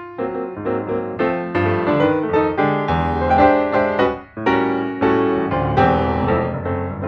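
Background piano music, a quick run of notes.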